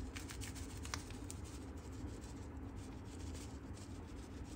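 Faint light scratching and tapping as ground black pepper is sprinkled over raw marinating chicken pieces, over a steady low room hum.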